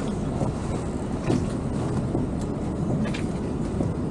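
Towboat's engine running steadily at low speed, a continuous low rumble, while it maneuvers with a disabled yacht tied alongside.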